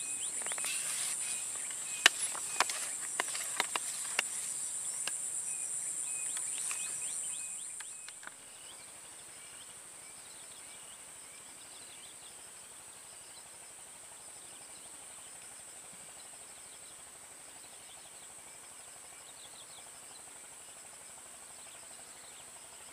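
Steady high-pitched drone of swamp insects with faint repeated chirps, and a few sharp clicks in the first seconds. About eight seconds in the drone drops abruptly to a much fainter level and carries on.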